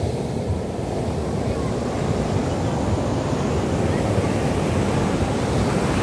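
Ocean surf breaking and washing up a sandy beach, a steady rushing wash, with wind rumbling on the microphone.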